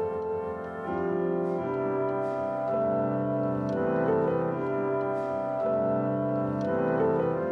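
Background music: sustained keyboard chords, organ-like, changing about every second or two.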